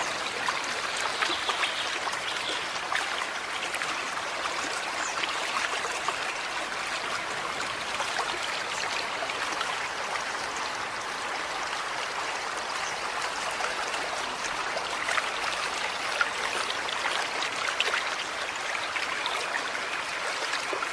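Small stream running steadily over stones, a constant trickling and splashing of water.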